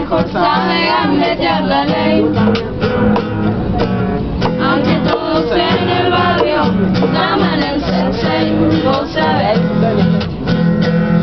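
Acoustic guitar strummed, with voices singing along.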